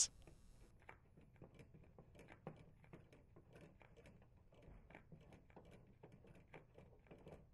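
Faint, irregular small clicks and scrapes of a plastic heating-element mounting nut being spun off its threaded terminal by hand, under a dishwasher tub.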